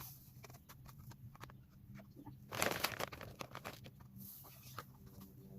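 Seed bag rustling and small seeds rattling as thistle seed is scooped out with a measuring cup, with a louder rustle about two and a half seconds in.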